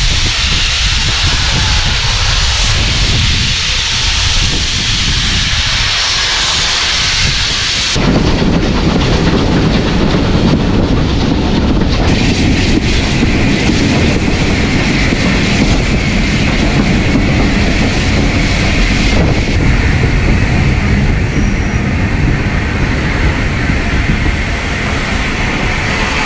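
Steam hissing from the Bulleid Battle of Britain class locomotive 257 Squadron as it stands. About a third of the way in this changes suddenly to the heavy rumble of the train running on the rails, wheels and coaches under way, with steam hiss still mixed in.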